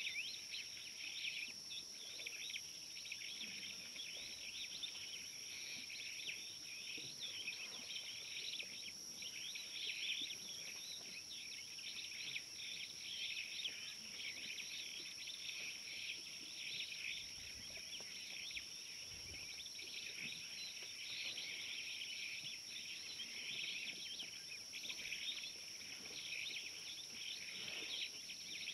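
Steady daytime insect chorus: a dense, shrill chirring with two constant high-pitched whines above it, and faint bird calls mixed in.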